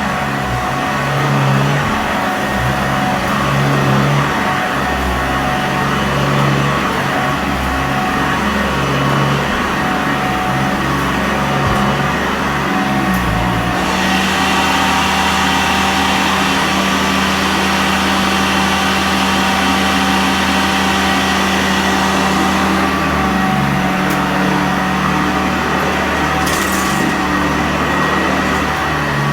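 Sanitaire upright vacuum cleaner running on carpet: motor and brush roll with a steady whine. The low hum shifts with each push and pull for the first half, then runs steadier.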